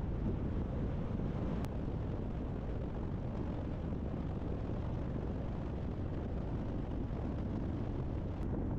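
Car driving at steady speed: an even low rumble of road and engine noise, with some wind on the microphone.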